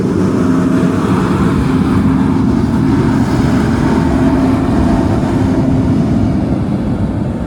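Large truck engine running steadily close by, a deep rumble with a constant hum over it.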